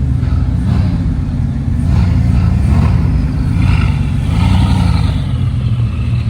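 Bugatti Veyron's quad-turbocharged W16 engine idling, revved in three short blips about two, three and four and a half seconds in, each rising and falling back.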